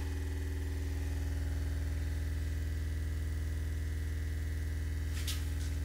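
SVS SB13-Ultra subwoofer playing a 20 Hz test tone at full volume: a steady low drone with a stack of overtones, its 13-inch driver making long strokes while the cabinet stays quiet.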